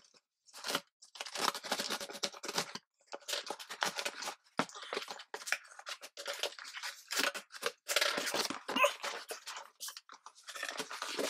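Scissors cutting open a cardboard shipping box, with scraping, tearing and rustling of cardboard and paper in irregular spurts with short pauses.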